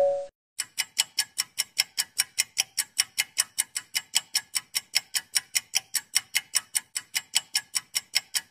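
Clock-ticking sound effect: fast, even ticks at about five a second, stopping just before the end. It opens with the tail of a two-note chime dying away.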